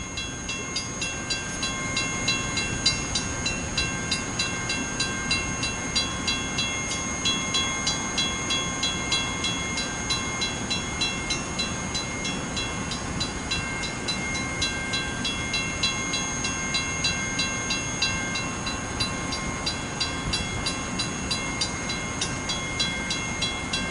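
Metra Electric commuter train running: a steady whine of several fixed tones over rumbling noise, with a regular clicking about three times a second.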